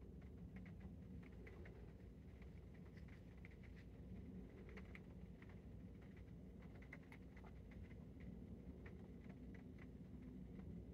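Near silence: a low indoor room hum with scattered faint ticks and taps.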